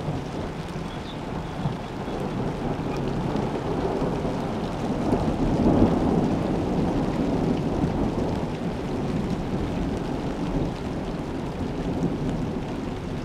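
Thunder rumbling low and long from a passing thunderstorm, swelling about halfway through and then slowly fading, over steady rain.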